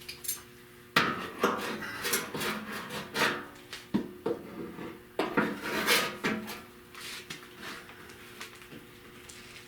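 Clamps and other hand tools clattering and clanking as they are picked up and set down. A run of sharp knocks and rattles comes in the first six seconds or so, then they thin out, over a faint steady hum.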